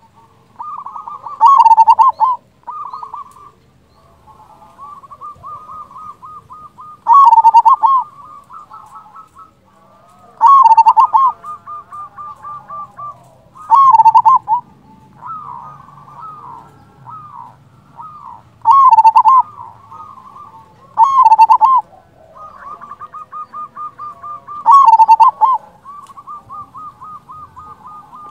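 Local zebra dove (perkutut) singing: seven loud cooing phrases spaced a few seconds apart, with quieter rapid runs of short staccato coos in between.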